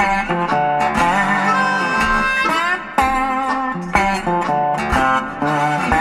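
Outro music led by a guitar: plucked notes struck about once a second, with bent, sliding pitches between them.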